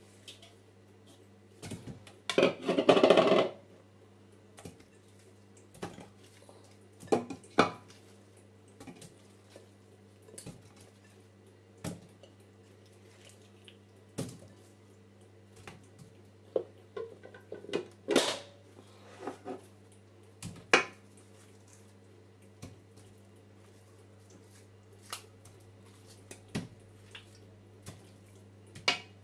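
Pieces of raw beef, smoked turkey and tripe being put by hand into a large aluminium cooking pot. Scattered knocks and clatters of meat and bowls against the pot, the longest clatter about two to three seconds in, over a faint steady hum.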